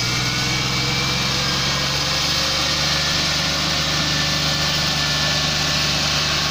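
Farm tractor's diesel engine running steadily under heavy load, pulling an overloaded trailer of straw.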